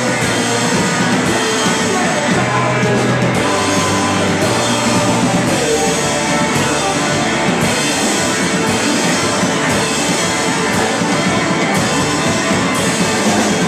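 Live rock band playing at full tilt: electric guitar, drum kit and a man singing into the microphone.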